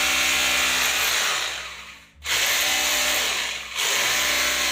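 JCB Plus JKD 3200 rotary hammer, a 5.2-joule SDS breaker-drill, running in chisel mode against old concrete under light hand pressure, the way it breaks best. It winds down about two seconds in and starts again straight away, with a brief dip near the end.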